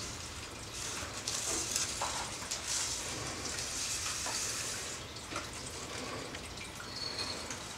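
A crinkly plastic snack bag rustling and crackling in irregular bursts as a small pet bird pecks and tugs at it.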